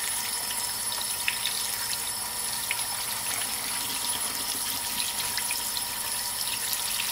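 Kitchen faucet running a steady stream of water onto cottage cheese curds in a cheesecloth-lined colander, with faint light splashes as fingers work the curds.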